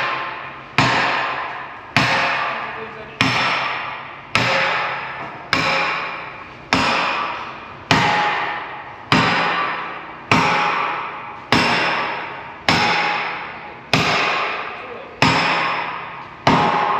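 Heavy hammer blows on steel in a steady rhythm, about one every 1.2 seconds, each ringing out and dying away before the next: driving a seized pin out of a bulldozer blade.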